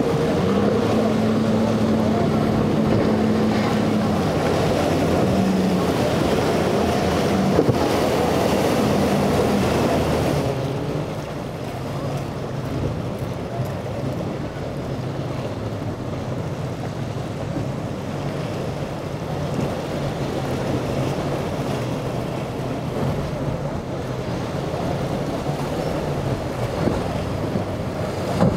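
Outboard engines of center-console boats running through rough inlet waves, with water splashing and wind buffeting the microphone. The first boat, a Century with a single Yamaha 200 outboard, holds a steady engine note that shifts slightly in pitch. About ten seconds in the sound drops a little and a second boat's engine hum carries on under the waves and wind.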